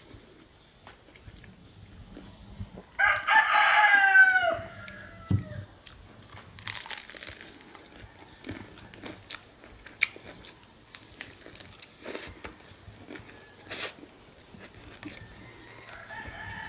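A rooster crows once, loudly, about three seconds in, the call dropping in pitch at its end. Around it are quiet crunches and chewing of fried chicken.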